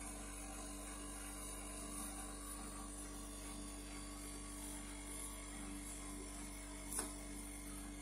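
Steady low electrical hum with no other activity, and one short, sharp click about seven seconds in.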